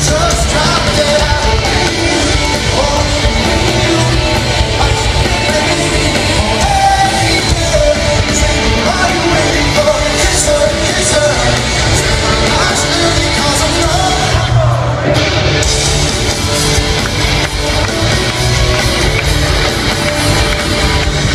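Live rock band playing loudly with a singer, heard from among the crowd.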